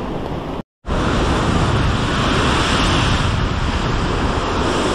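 Sea surf washing against the shore, with wind buffeting the microphone. The sound drops out completely for a moment just under a second in, then carries on steadily.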